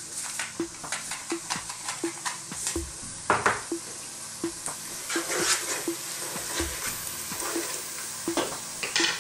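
Onions, garlic-ginger paste and ground spices sizzling and crackling in hot oil in a saucepan on high heat. Toward the end a wooden spoon stirs and scrapes through the mixture.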